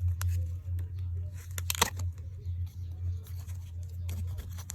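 Plastic packaging being handled and torn open, crinkling with scattered clicks and a sharp snap about two seconds in, over a steady low hum.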